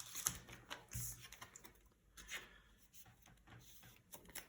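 Faint, irregular light clicks and rustles of trading cards and foil booster-pack wrappers being handled on a table.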